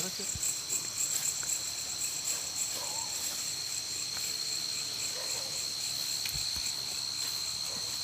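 Night chorus of crickets: a steady, continuous high-pitched trill, with a few faint low knocks.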